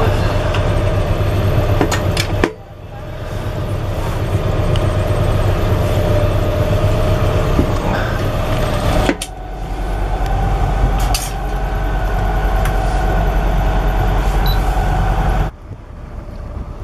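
A sailboat's inboard engine running steadily under way, a loud low hum with a few steady tones. The hum drops suddenly about two and a half seconds in, comes back deeper and louder about nine seconds in, and near the end gives way to quieter wind and water noise.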